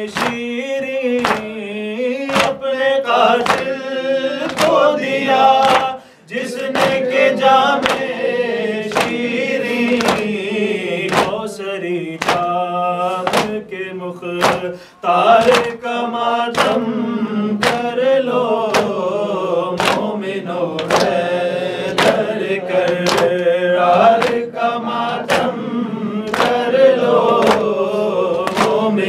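Men chanting a Shia lament (noha) in unison, over rhythmic matam: hands slapping on chests in a steady beat.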